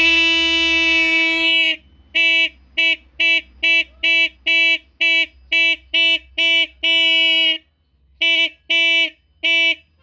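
Repaired motorcycle electric disc horn sounding on the bench as it is tested: one long blast for about the first two seconds, then a quick run of short beeps as it is powered in pulses, a longer beep about seven seconds in, and three more short beeps. It holds one steady high pitch throughout.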